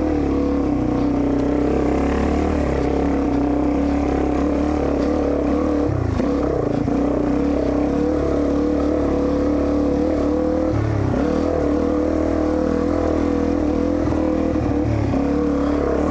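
Dirt bike engine running at a fairly steady speed while riding, with brief throttle changes about six and eleven seconds in.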